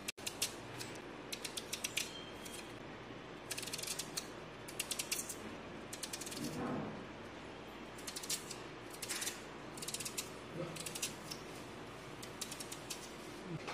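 Small kitchen knife cutting through crisp raw onion slices held in the hand: runs of short, sharp crunching crackles that come in quick clusters every second or so.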